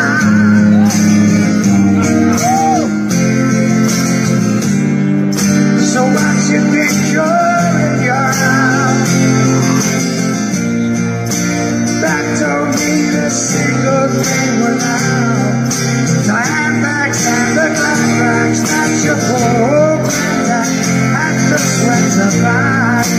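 Busker's music: guitar playing chords under a wavering melody line.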